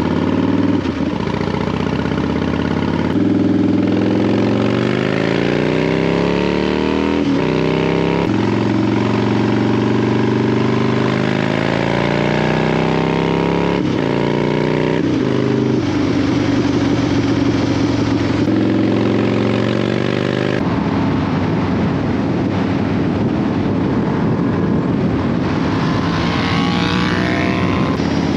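Motorcycles riding under way, a Harley-Davidson Fat Bob and a Yamaha R7, engine pitch rising and falling with throttle and gear changes; the sound jumps abruptly several times. Near the end a higher-pitched engine revs up.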